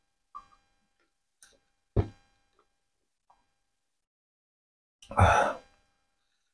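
Close-miked drinking of water from a small plastic bottle: a few faint mouth and bottle clicks, one loud gulp about two seconds in, and a longer, noisier drinking sound about five seconds in.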